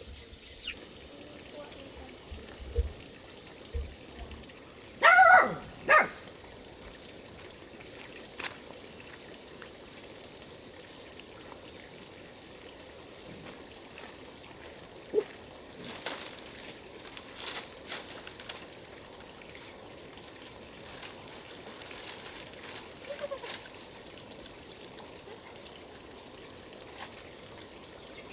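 Steady high-pitched drone of crickets and other insects, with a loud, short pitched call twice about five and six seconds in and a few small clicks and knocks scattered through.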